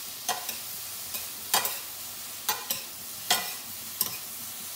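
Quartered mushrooms sizzling in butter and olive oil in a frying pan on high heat, searing. Two metal spoons toss them, knocking and scraping against the pan in sharp clacks every half second or so.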